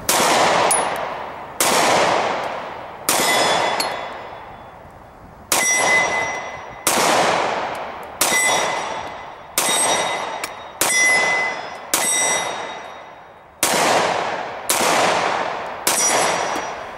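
Taurus G2C pistol fired twelve times at a steady pace, about one shot every second and a quarter. Each shot is followed by a long fading echo, and a high ringing tone hangs on after several of the shots.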